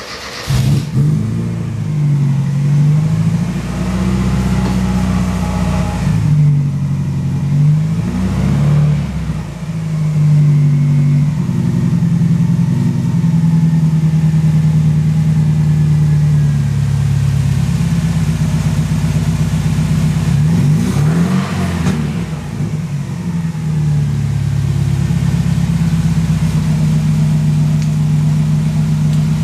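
Morgan Plus 4's engine and exhaust firing up, then running with several blips of the throttle that rev it up and let it drop back, the last about 21 seconds in. After that it settles to a steady idle.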